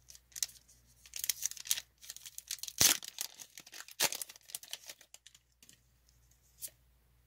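Foil wrapper of a Pokémon trading-card booster pack being torn open and crinkled: a run of rustling tears with two sharp cracks about three and four seconds in, dying away after about five seconds.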